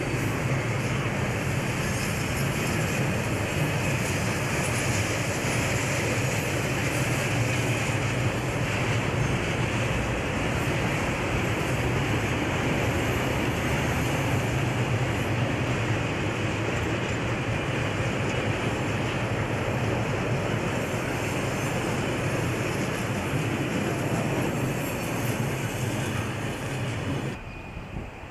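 Freight train of covered and refrigerated wagons rolling past on the rails, a steady wheel-on-rail noise that cuts off suddenly near the end.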